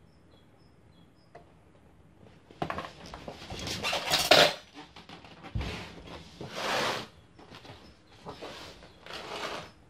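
Irregular clattering and knocking of small plastic containers, a plastic lid and metal tweezers handled on a wooden floor. It starts about two and a half seconds in, is loudest around four seconds, and is followed by further scattered knocks and rustling.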